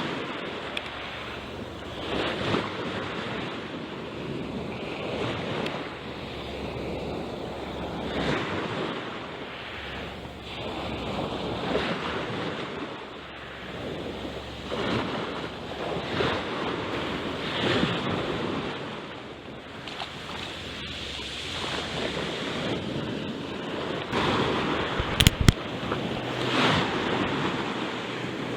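Sea waves washing in at the shore, surging and ebbing every couple of seconds, with wind on the microphone. A brief sharp knock near the end.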